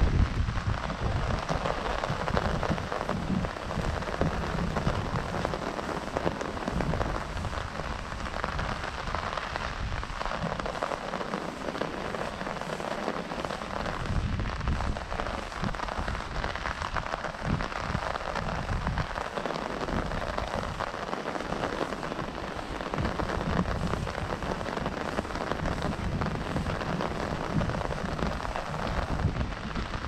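Steady rain falling on an umbrella held overhead, with wind gusting across the microphone in an uneven low rumble.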